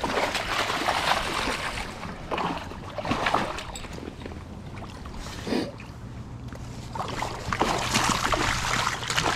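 Irregular water splashing from a hooked flathead catfish thrashing at the surface as it is landed.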